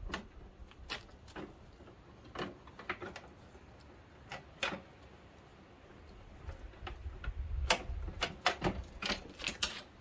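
Scattered light clicks and knocks of parts of a lawn tractor being handled. They come a few at a time through the first half, pause, then come thicker and louder near the end.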